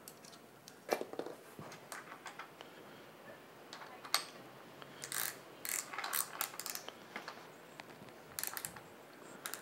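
Small metal parts of a GoGo Elite mobility scooter's clutch and transaxle clicking and rattling as they are fitted together by hand. Irregular single clicks, with short bursts of quick rattles about halfway through and again near the end.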